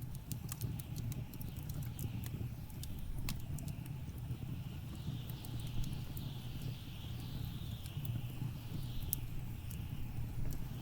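Wood fire crackling, with irregular sharp pops and snaps over a steady low rumble, while blizzard wind whistles and wavers in pitch.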